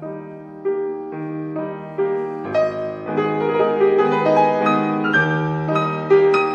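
Piano music: a calm melody played note by note over held lower notes, with no firework bangs heard.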